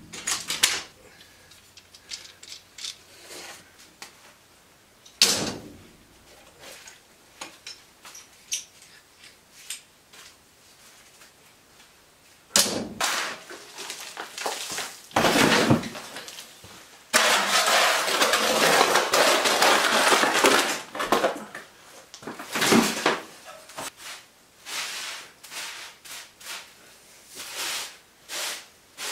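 Floor clean-up on a concrete floor. It opens with a few small clicks of spring clamps being tested, then brings scattered knocks and clatters as debris is scooped and dropped into a plastic bin. A long stretch of scraping and rustling runs through the middle, and broom sweeping follows.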